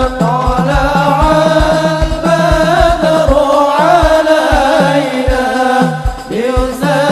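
A group of male voices singing an Arabic sholawat (devotional song in praise of the Prophet) into microphones, over a low drum beat of about three strokes a second.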